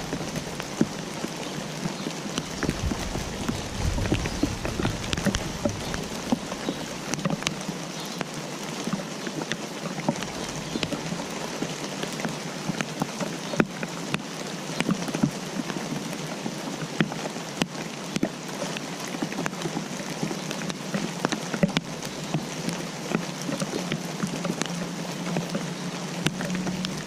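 Steady rain falling, with many individual raindrops ticking sharply on a surface. A brief low rumble comes about three seconds in.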